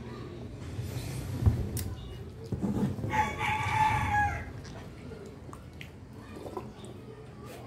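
A rooster crows once, a drawn-out call of a little over a second starting about three seconds in, over a steady low rumble. A single sharp knock sounds about a second and a half in.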